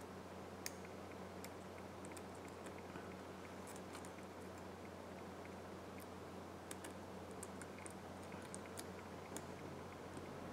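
Faint, scattered small clicks and ticks of a black plastic spudger tapping and prying at an opened iPhone 11's connectors and frame, over a steady low electrical hum.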